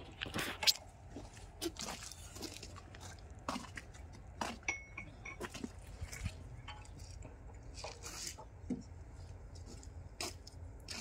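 Irregular light metallic clicks and taps of main bearing shells being seated by hand into the crankshaft saddles of a Cummins KT1150 engine block, the sharpest about a second in, over a steady low rumble.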